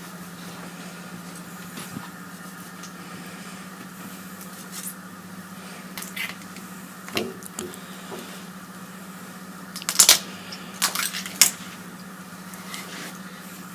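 Knife work on a pig carcass, cutting round the back leg joint: occasional knocks and light clatters of the knife and carcass on the table, with the loudest cluster about ten seconds in, over a steady background hum.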